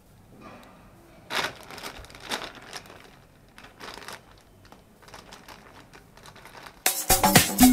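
Plastic courier mailer bag crinkling in irregular bursts as it is handled and cut open with scissors that struggle to cut. About seven seconds in, loud background music with a steady beat comes in suddenly.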